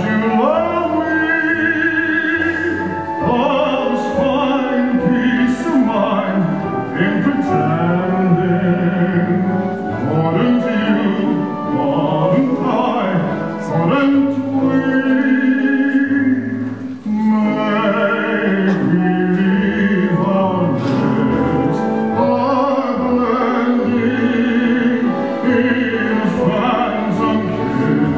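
Live stage-musical singing in a classical, operatic style with strong vibrato, held notes and phrases over instrumental accompaniment. There is a brief break between phrases about two-thirds of the way through.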